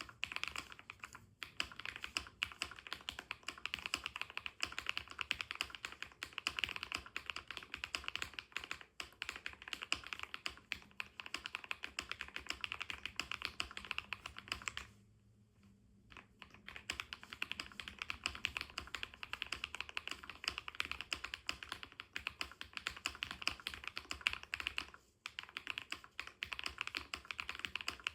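Continuous fast typing on a Keychron Q1 Max mechanical keyboard with KTT Kang White linear switches and JKDK PBT keycaps: a rapid run of keystroke clacks, stopping for about a second and a half midway and again briefly near the end.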